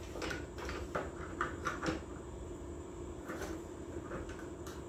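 Metal clinks and knocks from a hand-lever bench press and spring compressor being handled and set down onto an A750F automatic transmission clutch drum: a quick run of clicks in the first two seconds, then a few single knocks.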